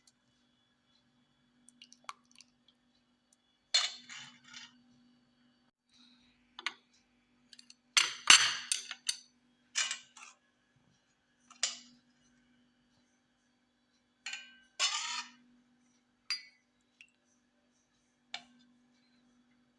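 Glass and kitchenware clinking and clattering in a string of separate short bursts as things are handled, the loudest about eight seconds in.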